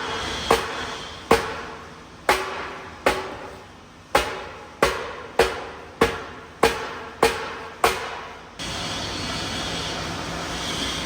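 Hammer striking a welded metal tank about eleven times, each blow ringing briefly, the blows coming faster toward the end; this is the hammering that works the weld-distorted tank back to round. A steady hiss takes over near the end.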